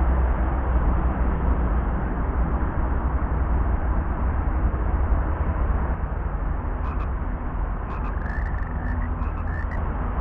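Frogs calling: a run of short clicking croaks and brief chirps starting about seven seconds in, over a steady low rumble.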